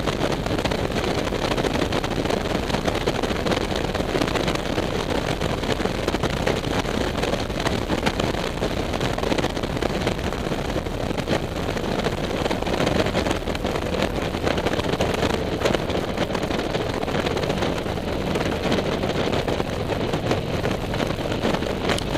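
Motorcycle cruising at steady speed: engine drone mixed with wind noise rushing over the microphone, an even, unbroken sound throughout.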